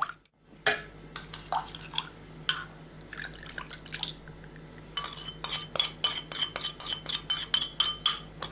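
Marinade pouring and dripping from a ceramic bowl onto meat in a stainless steel tray. Then a metal spoon scrapes and taps the bowl, making a quick run of clinks, about four a second.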